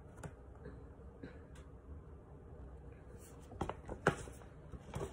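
Paper rustling and a few light taps and clicks as a picture book is handled, the sharpest tap about four seconds in.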